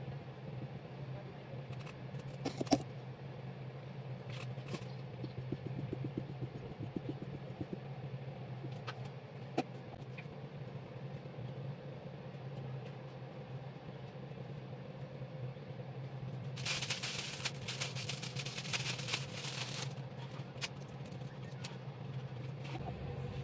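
Hands handling cake-decorating things over a steady low room hum: a sharp tap a few seconds in, a few lighter clicks, and about three seconds of crinkly rustling a little past the middle.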